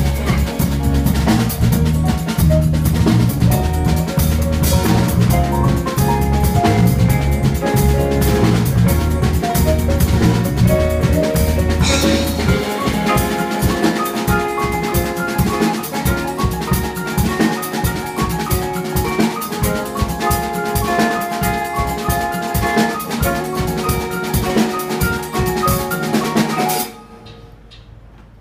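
A band playing live with a drum kit. A little under halfway in, the steady low bass gives way to drum hits under the higher parts. The music stops abruptly near the end, leaving quiet room sound.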